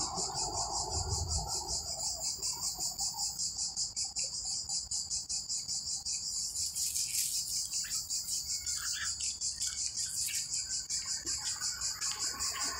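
Insects trilling steadily in a fast, even pulse. Short soft clicks come in during the second half.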